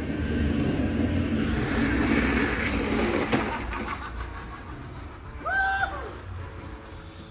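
Garbage truck engine running in the street, a steady low rumble with traffic noise, louder in the first few seconds. A brief pitched tone sounds about five and a half seconds in.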